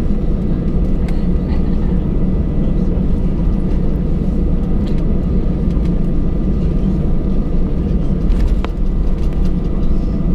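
Cabin noise of an Airbus A319-111 taxiing after landing: a steady low rumble from the engines at idle and the rolling aircraft, with a faint steady whine and a few light ticks.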